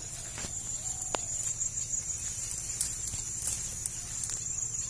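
Steady high-pitched chirring of crickets, with scattered sharp clicks and rustles of leaves and twigs as someone pushes through dense brush.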